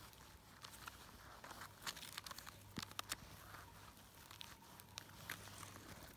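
Faint rustling and small crackles and snaps of moss, grass, pine needles and twigs as a hand works through the forest floor picking mushrooms.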